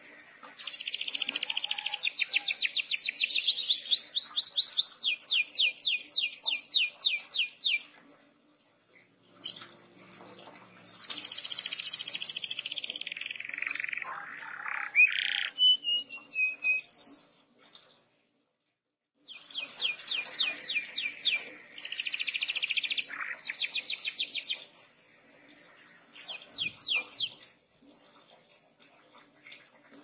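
Domestic canary singing in long phrases of fast, evenly repeated trill notes, with some clear whistled notes. The song comes in four stretches with short pauses between them, and its loudest point is a sharp high whistle a little past the middle.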